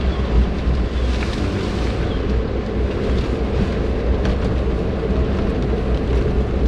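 Steady hum of a car's engine and road noise heard from inside the cabin, with heavy rain falling on the car.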